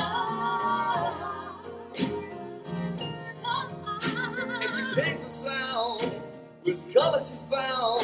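Live band music: keyboard with bowed cello and violin, sustained chords under a wavering melody line with vibrato.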